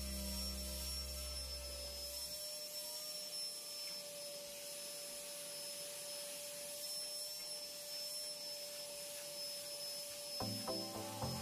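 Vacuum cleaner running with a steady whine and hiss. Background music fades out about two seconds in and comes back near the end.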